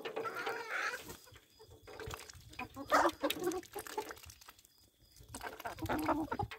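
Domestic hens clucking in short bursts, with scattered light taps between the calls.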